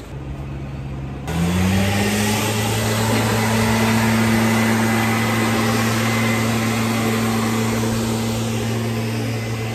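Backpack leaf blower running, a steady engine drone with rushing air. About a second in it gets much louder and its pitch sweeps up as it comes up to full speed, then holds steady.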